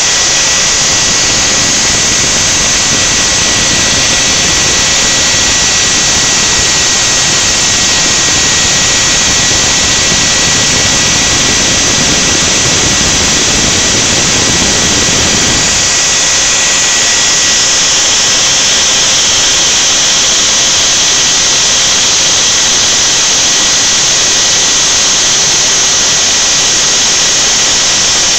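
Spindle motor of a homemade CNC router whining steadily at high speed while its end mill carves white foam, with a thin steady high tone running through it. A deeper rumble beneath it eases off a little over halfway through.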